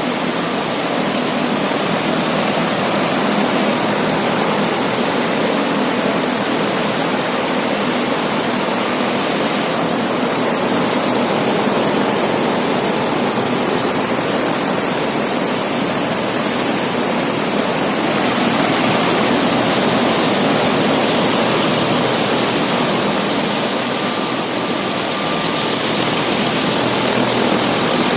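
Large six-blade exhaust fan, 2.2 m across and driven by a 10 HP motor, running at speed: a loud, steady rush of moving air.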